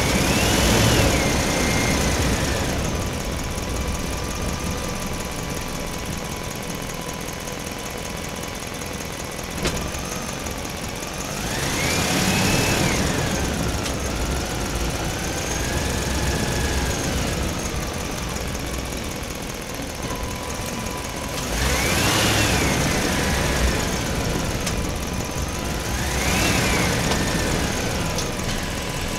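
Truck engine sound of a model logging truck, a steady low rumble at idle that revs up and falls back four times: once at the start, once midway and twice near the end.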